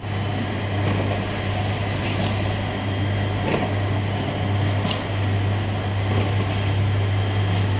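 Automatic onde and boba forming machine running: a steady electric motor hum over a mechanical whirr, with a few light ticks now and then.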